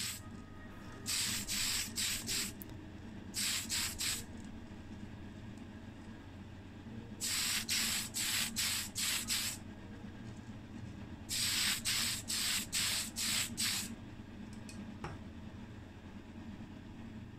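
Spray primer hissing onto a small diecast car body in short bursts: four spells of a second or two each, every one broken into quick puffs, over a steady low hum.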